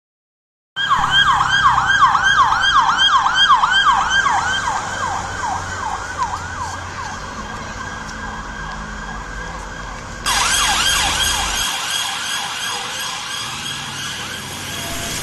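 London police car siren on its fast yelp setting: a rapid up-and-down sweep repeating about three times a second over a low vehicle rumble, slowly fading. About ten seconds in it cuts abruptly to a second, louder recording of the same yelp.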